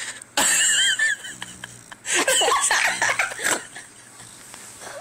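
A sleeping puggle snorting, and people laughing at it in short bursts.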